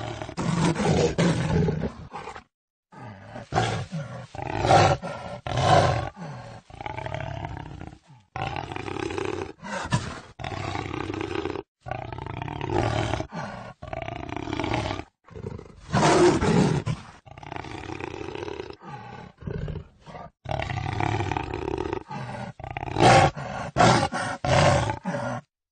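Jaguar roars and growls: a string of rough, loud calls, each a second or so long, broken now and then by abrupt gaps of dead silence where recordings are spliced together.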